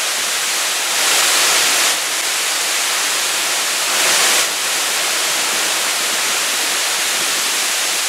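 Waterfall plunging into a pool inside a cave: a loud, steady rush of falling water, swelling louder twice, about a second in and again around four seconds in.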